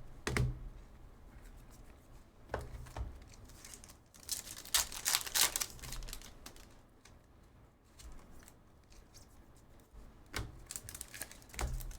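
Trading cards and their packaging being handled on a table: scattered clicks and taps, a few dull thumps, and short crinkly rustles, the loudest run about five seconds in.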